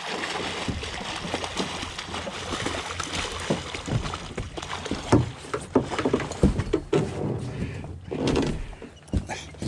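Water splashing and sharp knocks against a small fishing boat as a thrashing chum salmon is hauled in with a landing net.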